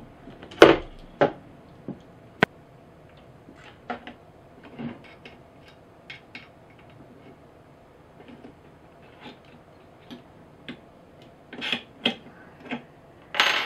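Scattered small metal clicks and taps of an Allen key working out the screws of a rail mount on an air rifle, with the little screws and parts set down on a wooden desk. The sharpest knocks come just under a second in, with a cluster of clicks near the end.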